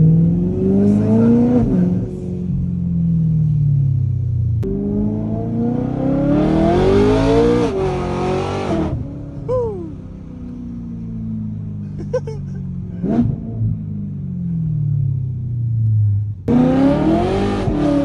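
Straight-piped BMW E92 M3's V8 heard from inside the cabin, pulling hard up through the revs three times, each pull rising steeply in pitch and cutting off sharply. In between, the engine note falls away as the car coasts down, with a few short sharp cracks about two-thirds of the way through.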